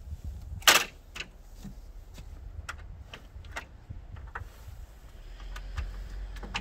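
A wire-mesh panel is set down onto the metal-and-plastic frame of a Bosch GTS 635-216 table saw, landing with one sharp clatter about a second in, followed by a series of lighter clicks and taps as it is settled and adjusted.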